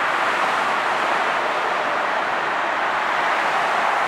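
Steady rush of heavy expressway traffic, tyres and engines of many cars passing on the lanes beside the platform.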